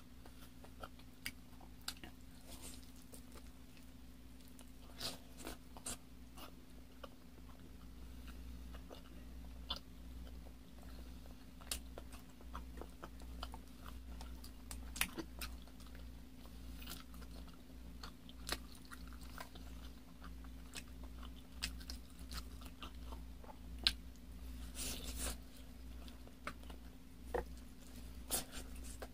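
Close-miked mukbang eating of chicken hamonado (braised chicken leg) and rice: irregular wet mouth clicks and smacks from chewing and biting, with one longer smack late on, over a steady low hum.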